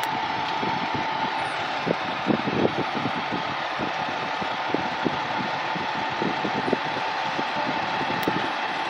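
Parked fire trucks' diesel engines idling close by, a steady engine hum with irregular light clatter. A steady whine fades after about a second and a half.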